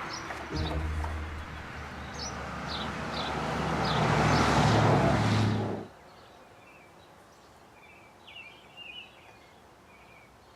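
Birds chirping over the steady rumble and low hum of a running vehicle engine, which grows louder and then cuts off abruptly about six seconds in, leaving only faint bird chirps.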